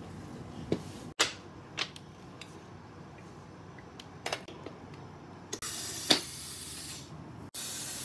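Thomas & Friends wooden toy trains and wooden track handled and rolled: a handful of scattered sharp wooden clicks and knocks, the loudest about six seconds in, over faint room noise.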